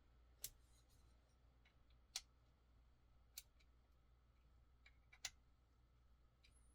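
Faint, sharp clicks of a bit driver and metal knife parts as the knife's body screws are tightened: four clearer clicks every second or two among a few lighter ticks, over near silence.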